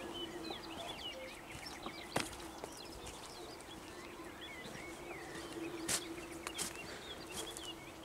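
Dawn chorus of many songbirds, lots of short overlapping chirps and trills, over a steady low drone. A few sharp knocks cut through, the loudest about two and six seconds in.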